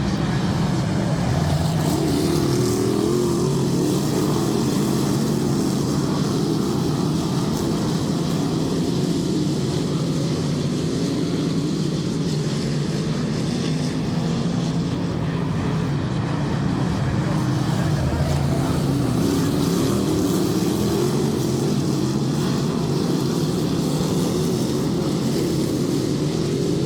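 Dirt track race cars running laps on the oval, a steady drone of several engines whose note swells and fades as cars come past.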